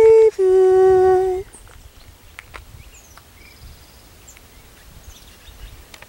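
A person's voice sounding two held notes, a short higher one and then a lower one held for about a second. After that come a few faint, short, high songbird chirps.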